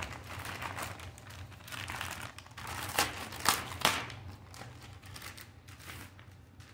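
Packaging crinkling and rustling as the instruction manual and paperwork are taken out of the box, with a few sharper crackles about three seconds in.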